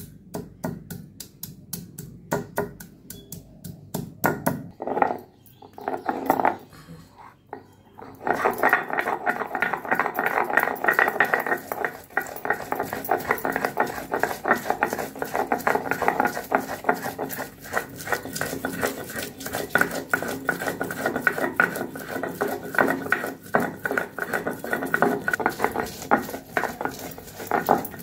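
Stone roller (nora) crushing sliced onion and ginger on a stone grinding slab (shil-nora): separate knocks as the pieces are crushed for the first several seconds, then continuous, rapid rolling and scraping of stone on stone as they are ground to paste.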